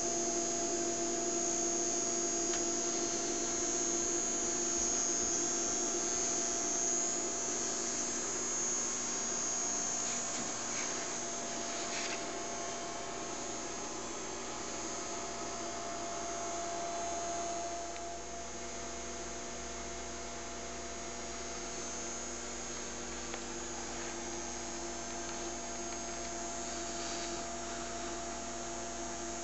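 Two Boucher 2100 standard gauge tinplate electric locomotives running double-headed, a steady motor-and-gear whine and hum as they pull a freight train along the track.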